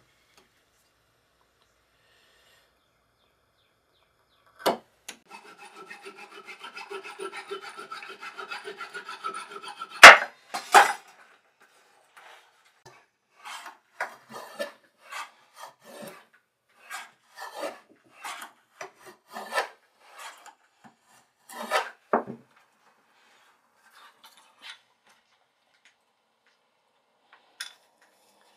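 Hand tools working wood: a sharp knock, then a run of quick back-and-forth strokes with a ringing tone, a loud knock, and single rasping strokes about once a second.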